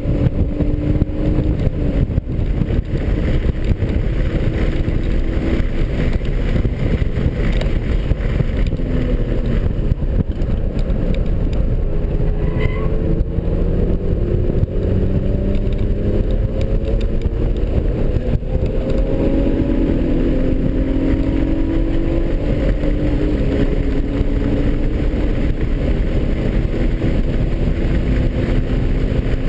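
2003 BMW 330i's 3.0-litre straight-six engine under hard driving, heard from inside the cabin over heavy road and wind rumble. The engine note climbs in pitch several times as the car accelerates and drops back at breaks about two seconds in and about two-thirds of the way through.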